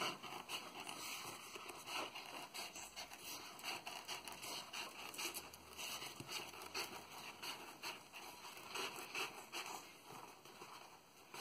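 Scissors cutting through a sheet of EVA craft foam: a quiet run of short snips and clicks as the blades work along the sheet, with the foam rustling as it is handled.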